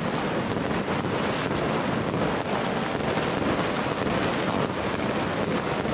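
Metal spoon stirring pasta salad in a plastic bowl: a steady, dense rustling and scraping with many small clicks.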